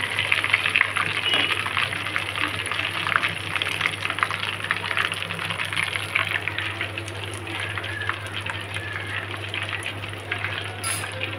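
Flour-battered chicken drumsticks deep-frying in hot oil, sizzling and crackling with dense rapid pops, easing a little towards the end. A steady low hum runs underneath.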